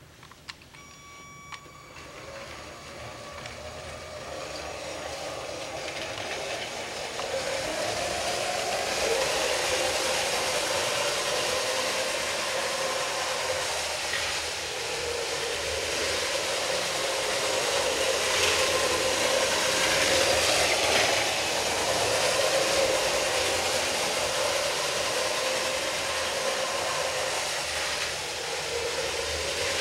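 Motorized LEGO train running on plastic LEGO track: a steady motor whine that wavers in pitch, with the rolling noise of the wheels on the track. It grows louder over the first several seconds and then holds.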